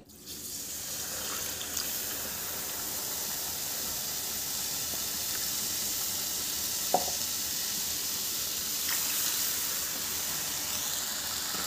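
Hot wheat flour roasted in ghee and oil sizzling steadily as water is poured into the pan, the water spitting and bubbling on the hot fat: the stage where water goes into browned atta for halwa. A single light tap sounds about seven seconds in.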